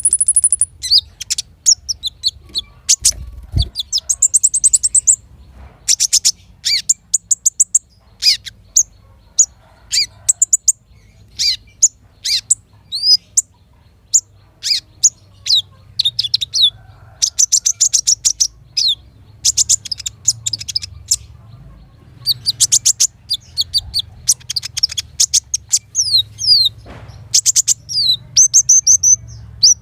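Sunbird song: bursts of rapid, very high-pitched chirps and trills repeated phrase after phrase, with short pauses between them, over a faint low hum.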